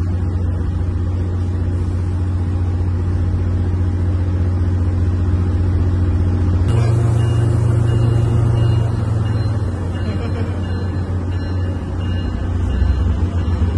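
Commuter train's diesel locomotive running at the platform, a steady low engine drone. About seven seconds in, the engine note steps up and holds for a few seconds before settling back.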